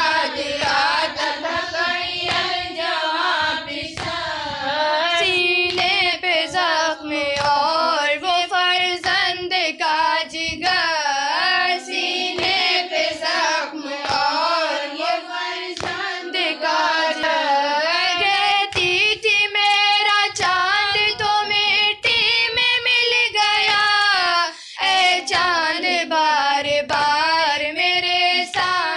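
A female voice singing a noha, a Shia Muharram lament, in a wavering, ornamented melody. A steady beat of sharp strikes runs under it.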